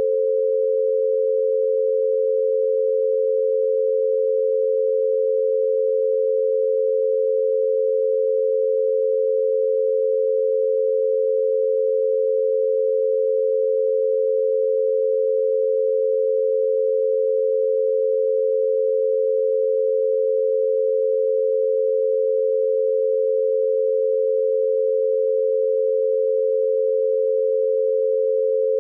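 88 Hz binaural beat: two steady pure sine tones close together in pitch, around 500 Hz and about 88 Hz apart, one carrier in each ear, held unchanged throughout.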